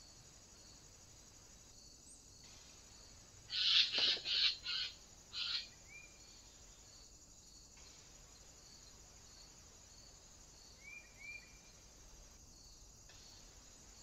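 Eurasian jay screeching: five harsh calls in quick succession a few seconds in, with two short thin chirps near the end. A steady, pulsing buzz of insects runs underneath.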